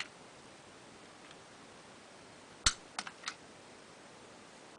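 Small two-lever sash lock being handled: one sharp click about two and a half seconds in, then two lighter clicks in quick succession.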